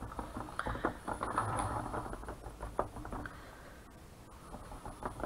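An old paintbrush tapping paint onto a rock in quick, light, irregular dabs, stippling the edges. The tapping thins out after about three seconds.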